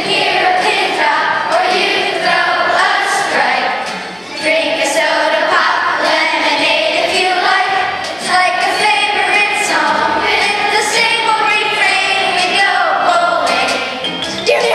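A boy singing a solo song over musical accompaniment in a school musical.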